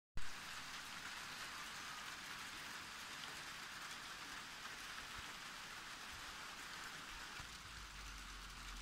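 A hail shower: small hail pellets and rain falling on concrete and garden soil, a steady dense hiss of countless tiny impacts. A low rumble joins in about seven seconds in.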